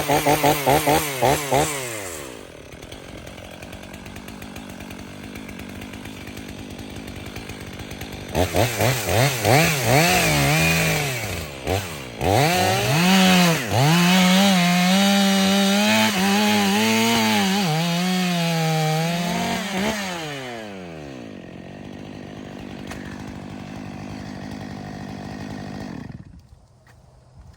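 Stihl MS 500i fuel-injected two-stroke chainsaw, revved in quick throttle blips and idling, then run at full throttle cutting into a tree stump, its pitch dipping under load and recovering again and again. It drops back to idle, and the engine sound falls away near the end.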